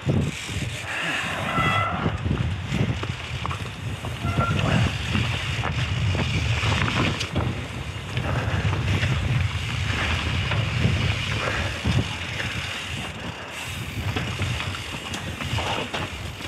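Mountain bike being ridden down a rough dirt trail: continuous rumble and rattle of the tyres and bike over the ground, with jolts and clatters throughout.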